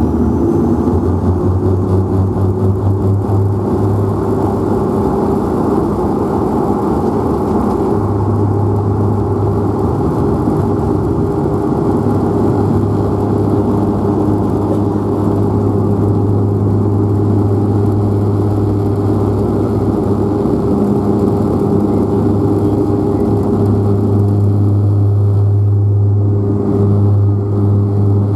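De Havilland Canada Dash 8 Q400's Pratt & Whitney PW150A turboprops at takeoff power, heard inside the cabin next to the six-bladed propeller. A deep, steady propeller drone over runway rumble during the takeoff roll.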